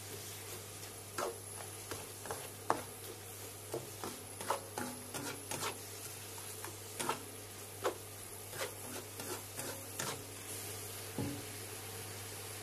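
Spatula scraping and knocking against a stainless steel wok while stir-frying cabbage, in irregular strokes, over a steady low hum. A duller knock comes near the end.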